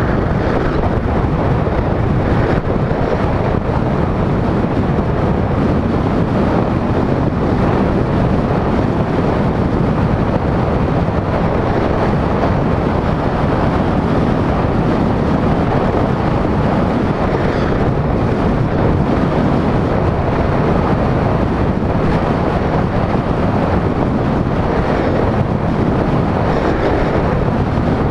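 Steady rush of wind across the microphone of a camera mounted on a moving car, mixed with road and tyre noise from driving at speed.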